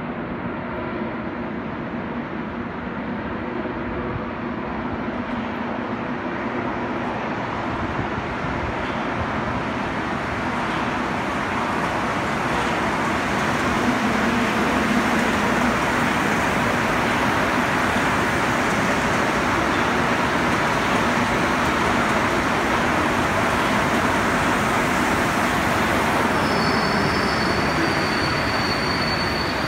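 Rubber-tyred metro train running into the station and along the platform: a rumble that grows louder over the first dozen seconds, then holds steady as the cars pass, with a high squeal near the end.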